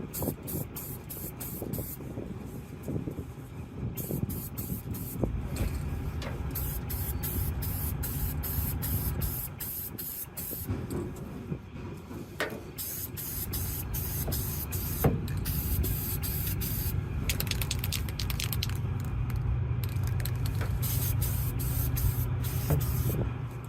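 Spray paint going on in many short hissing bursts that start and stop over and over, over a steady low rumble of vehicles.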